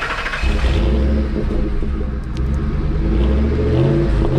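A 2004 Ford F-150's 4.6-litre Triton V8 is cranked by the starter and catches about half a second in. It then runs steadily, and its speed rises near the end.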